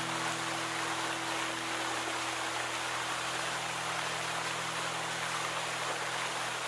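Water jets of a park fountain falling and splashing into the basin: a steady, even spray. A faint low tone fades away in the first couple of seconds.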